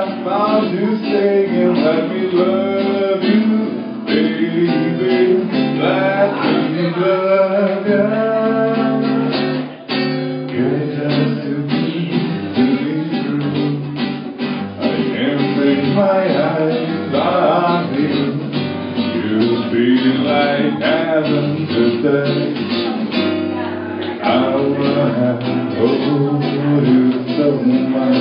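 Acoustic guitar strummed live, with a man singing along.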